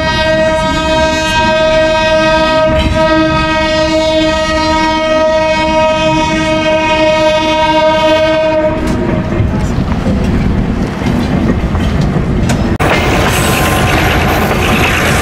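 Train horn sounding one long steady blast of several tones, cutting off about nine seconds in, followed by the running noise of the moving train.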